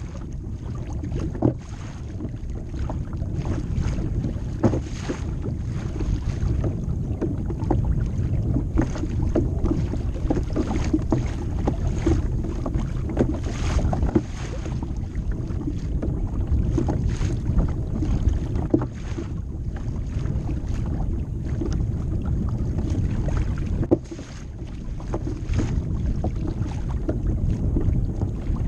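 Wind buffeting the microphone over a low rumble of water against a moving Hobie fishing kayak's hull, with frequent irregular small knocks and slaps from choppy waves.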